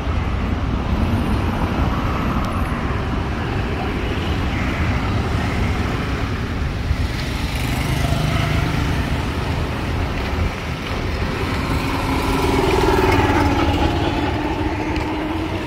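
Street traffic: cars passing slowly, with a steady low rumble. About twelve seconds in, a motorcycle engine approaches, its note rising slightly in pitch.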